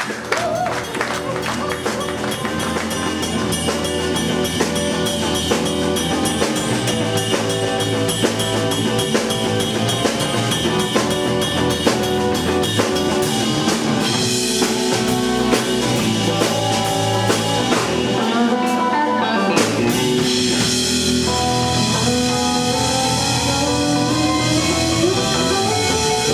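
Live instrumental trio of electric guitar, electric bass and drum kit playing a jazz-blues fusion tune. The bass drops out briefly about two-thirds of the way in, then a drum hit brings the full band back.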